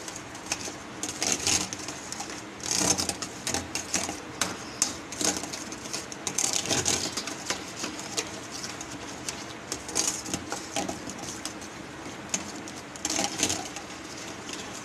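Metal spoon briskly stirring a thick yogurt and spice marinade in a stainless steel bowl, clicking and scraping against the bowl in quick irregular strokes, with louder clusters every few seconds.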